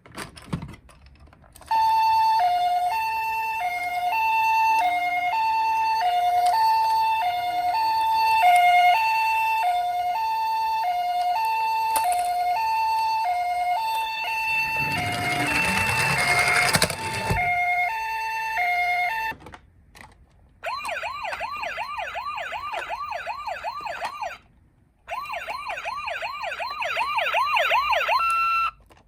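Toy ambulance's electronic siren sounding the two-tone hi-lo "pee-po" of a Japanese ambulance, with a brief burst of noise partway through. After a short break it switches to a fast, repeating rising warble in two spells.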